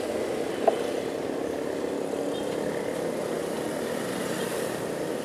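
Steady road and traffic noise heard from a moving bicycle, with motor vehicles nearby. One sharp click about two-thirds of a second in.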